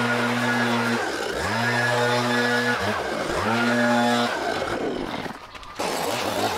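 Petrol backpack leaf blower running, its engine speed dropping and climbing back about every second and a half as the throttle is eased off and opened again. About five seconds in the sound falls away briefly, then a string trimmer's engine cuts in abruptly, running steadily.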